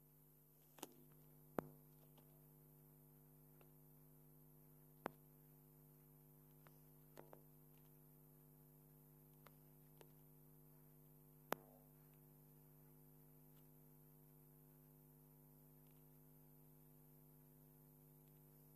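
Near silence: a faint steady hum, broken by a few scattered faint clicks.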